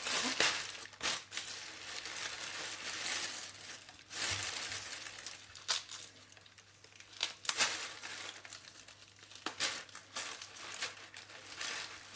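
Plastic bags and cling film crinkling and tearing in irregular bursts as they are slit with a knife and peeled by hand off a whole salted fish.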